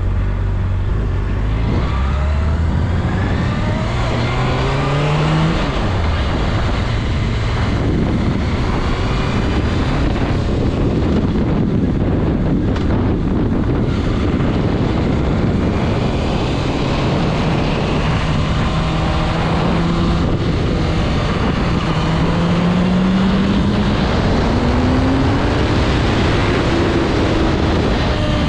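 Honda CBR600RR sport bike's inline-four engine under way, its pitch climbing as it pulls through the revs and falling back at a gear change, twice over. A steady rush of wind and road noise runs underneath.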